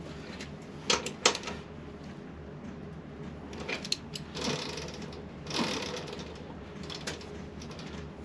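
Hand tools and metal parts being worked on: a few sharp clicks and short scraping sounds over a steady background hum.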